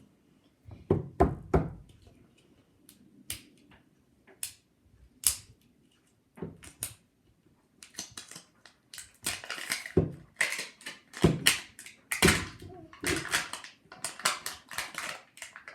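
Toy packaging being handled and unwrapped by hand: a few knocks about a second in, then scattered crackling and crinkling that grows denser in the second half.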